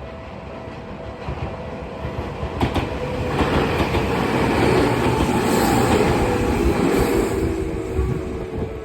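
Tokyu Ikegami Line electric train passing over the level crossing. Its wheels clatter on the rails, with a few sharp clicks a few seconds in, growing loudest in the middle and fading near the end.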